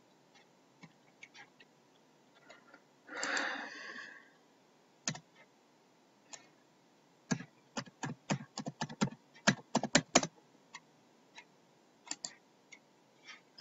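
Computer keyboard and mouse clicks, scattered at first, then a quick run of a dozen or so keystrokes and clicks over about three seconds near the end. A short, louder noisy sound lasts about a second, about three seconds in.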